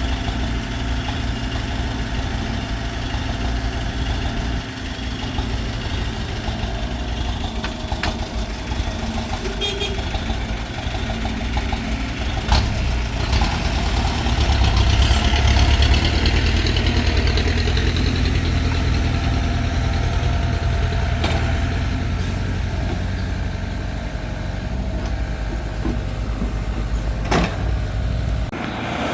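Diesel engine of heavy earthmoving equipment running steadily, its low drone swelling louder about halfway through, with a couple of sharp knocks.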